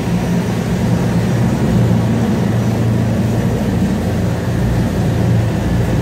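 MV Oceana high-speed ferry under way: its engines drone steadily with a strong low hum, under an even rush of wind and water over the open deck.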